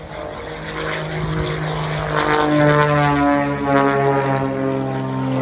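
Pitts aerobatic biplane flying past, its piston engine and propeller making a steady drone that grows louder about two seconds in, the pitch shifting slightly as it passes.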